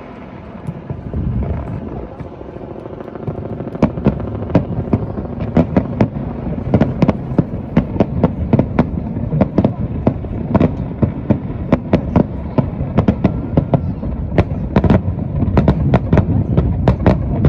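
Fireworks display: quieter rumbling at first, then from about four seconds in a dense barrage of shell bursts, several sharp bangs a second over a continuous low rumble of explosions.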